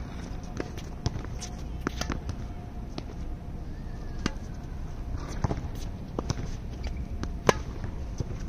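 Tennis rally on a hard court: rackets striking the ball and the ball bouncing, as a string of sharp pops about one to two a second. The loudest are forehand strikes about four seconds and seven and a half seconds in, with fainter hits and bounces between, over a steady low rumble.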